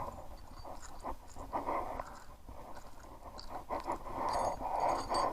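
Handful of coins being handled and counted: irregular rustling and scraping, with a few short metallic clinks ringing near the end.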